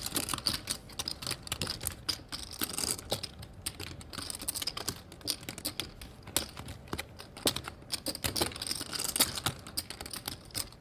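Clay poker chips clicking and clacking against each other in quick, irregular runs, as a player handles and riffles a stack at the table.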